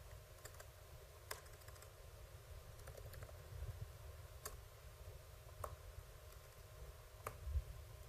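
Faint typing on a computer keyboard: a handful of separate keystrokes at an uneven pace, over a low steady rumble.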